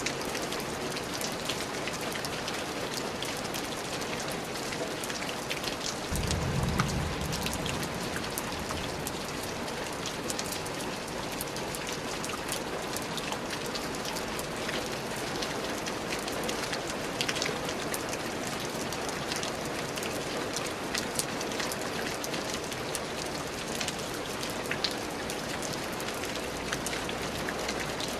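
Steady rain falling, a dense patter with many distinct drops ticking on a surface. A brief low rumble rises about six seconds in and fades within a couple of seconds.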